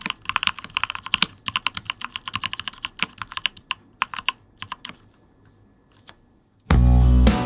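Typing on a mechanical keyboard with GMK 9009 R3 keycaps over lubed, filmed Mauve 65g linear switches in a Rama Koyu case with internal weight. The keystrokes come fast, then thin out and stop about five to six seconds in. Guitar music starts suddenly near the end.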